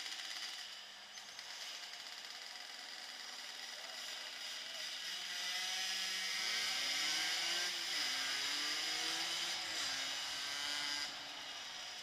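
Small motorcycle engines running as the bikes ride slowly, with a buzzing engine pitch that rises and falls as the revs change, louder from about five seconds in and easing off shortly before the end, over a steady hiss.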